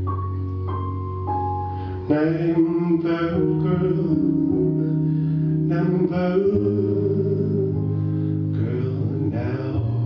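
Slow music: held instrumental notes stepping down in pitch, then a singing voice comes in about two seconds in with long, wavering sung phrases.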